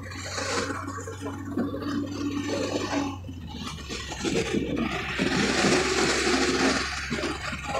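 Wind and road noise rushing in through the open window of a moving vehicle, over a steady low engine hum. It swells loudest about five to seven seconds in, as a bus passes close alongside.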